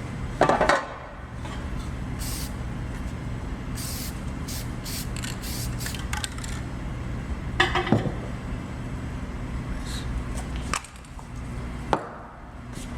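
Short hissing bursts from an aerosol can of guide coat sprayed in quick passes, several in the first half, over a steady low hum. There are a few loud knocks, near the start, about eight seconds in and near the end.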